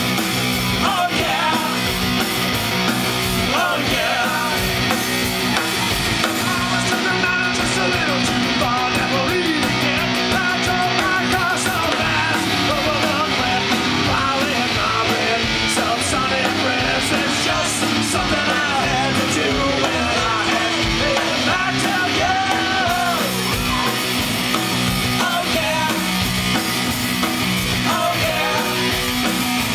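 Live punk rock band playing loud and continuous: electric guitar, bass guitar and drum kit.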